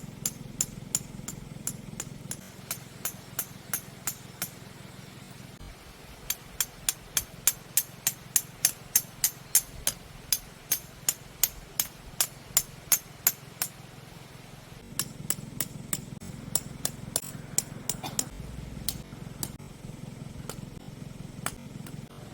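Tent pegs being hammered into the ground in three runs of sharp, evenly spaced strikes, the middle run quickest at about two to three blows a second.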